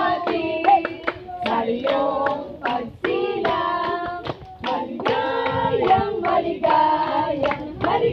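A group of mixed voices singing a birthday song together, with hands clapping in time throughout.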